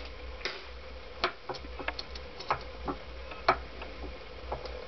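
Light, irregular metallic clicks and ticks of new piston rings being handled and fitted by hand onto a Honda CX500 piston, with the two loudest clicks about a second in and about three and a half seconds in.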